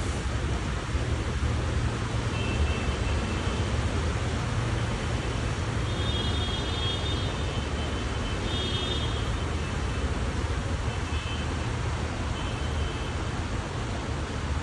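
Heavy rain pouring steadily, with a low rumble of wind buffeting the microphone. Faint high beeping tones sound several times.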